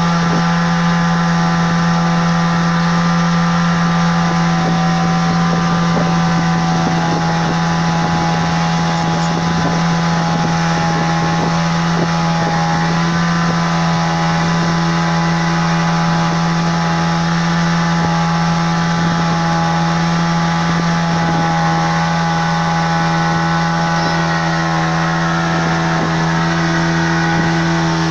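Motorboat engine running at a steady speed, one constant drone with no change in pitch.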